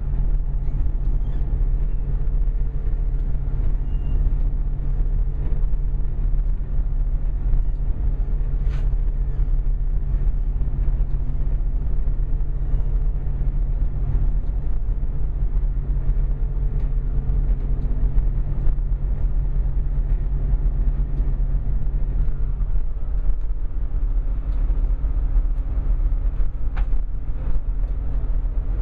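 Inside a Class 175 diesel multiple unit: the underfloor diesel engine and running gear give a steady low drone as the train rolls into the terminus platform. About two-thirds of the way through, a humming tone drops to a lower pitch, and a faint sharp click is heard once or twice.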